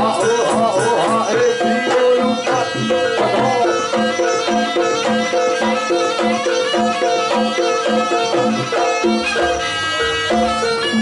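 Live jaranan dance music: a traditional Javanese ensemble of drums and repeating tuned percussion notes in a steady rhythm, with a wavering melodic line over it in the first few seconds.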